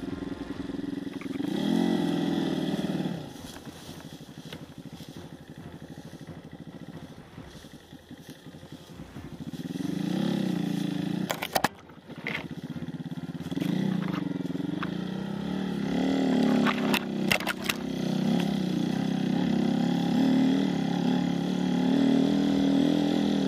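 Enduro dirt bike engine revving up and down in several bursts, then held at high revs through the last several seconds. A few sharp clacks come about halfway through.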